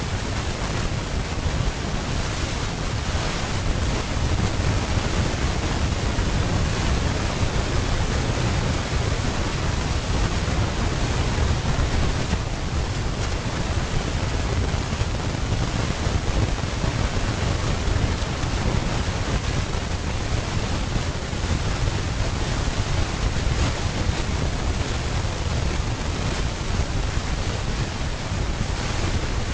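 Steady rushing noise with a strong low rumble, unchanging throughout; no elephant calls or splashes stand out from it.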